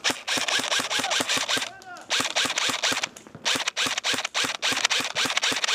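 Airsoft guns firing on full auto: rapid sharp clicks at about ten shots a second, in three long bursts with short pauses between them.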